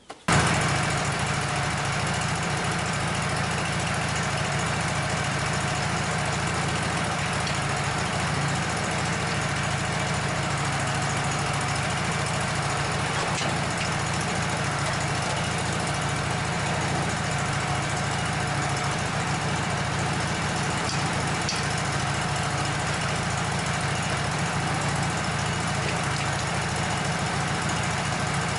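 Wood-Mizer LT15 portable sawmill's engine running steadily at idle while it warms up.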